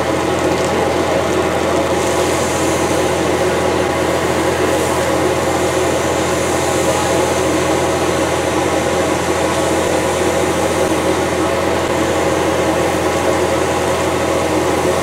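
Heavy diesel engine running steadily at a constant speed, a loud unbroken drone, with the steady hiss of fire hoses spraying water.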